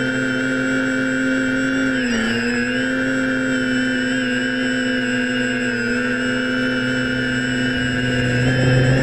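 DJI F550 Flamewheel hexacopter's brushless motors and propellers running steadily, heard from the GoPro mounted on the craft; about two seconds in the pitch dips briefly and comes back up.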